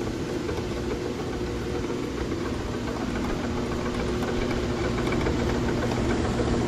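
Frantom 18-inch rock saw running just after being switched on: a steady motor-and-blade hum with two held tones under a dense whirring noise, growing slightly louder.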